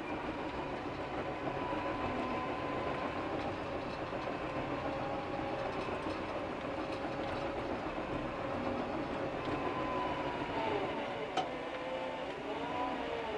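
Cat crawler dozer heard from inside its cab, working dirt with the engine and hydraulics running steadily under a wavering whine. About ten seconds in, the whine drops and rises again. A single sharp click comes about eleven seconds in.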